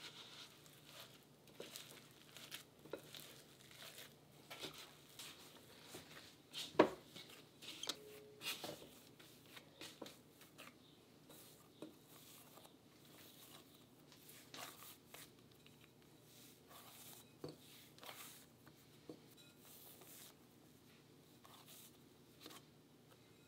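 Metal spoon stirring and scraping crumbly glutinous rice flour dough in a glass bowl, then hands kneading the dough against the bowl: faint scrapes and soft taps, with one sharp knock about seven seconds in.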